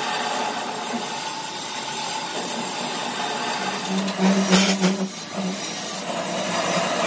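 Metal lathe turning a large helical screw-compressor rotor, the cutting tool scraping metal from its shaft end in a steady grinding hiss. About four seconds in it grows louder for a second, with a low hum and a sharp knock.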